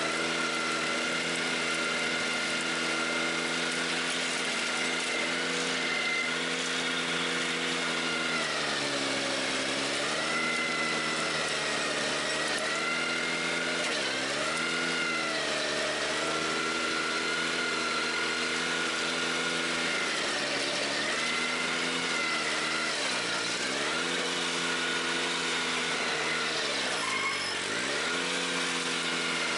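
Ventrac 4520Z compact tractor driving a KC180 stump grinder, the engine and cutter wheel running steadily under load. The pitch dips and recovers several times, most deeply near the end, as the cutter wheel bites into the stump and bogs the engine.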